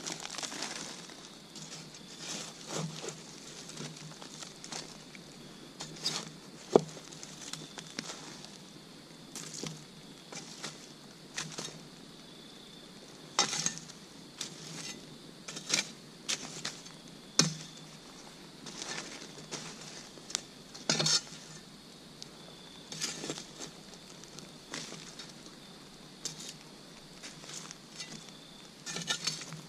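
Campfire coals being raked and poked with a tool to bury a foil-wrapped food packet: irregular scrapes, clinks and knocks of wood and embers, with the fire crackling. The sharpest knock comes about seven seconds in.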